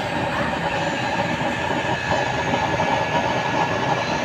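Homemade waste-oil stove's nozzle burner running with a blue flame: a steady rushing noise of flame and forced air, with a faint steady whine.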